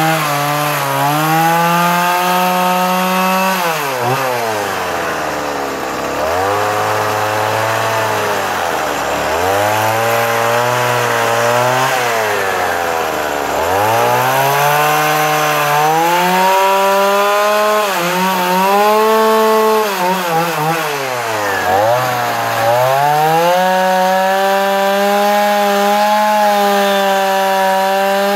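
Stihl MS170 two-stroke chainsaw carving into wood. The engine is revved high while the chain cuts, then drops back toward idle between cuts, rising and falling several times.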